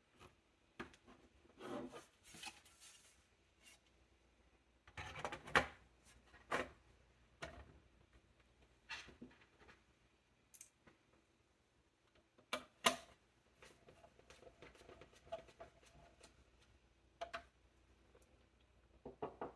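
Scattered light clicks, taps and scraping from computer parts being handled by hand: metal and plastic pieces of a mini desktop PC knocking and sliding against each other. The sharpest clicks come at about 5 s, 6 s and 13 s.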